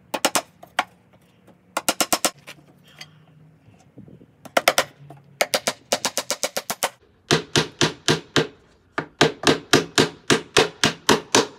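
Claw hammer driving nails into wooden boards: sharp strikes in several bursts, some in quick runs, the longest run of about a dozen blows near the end.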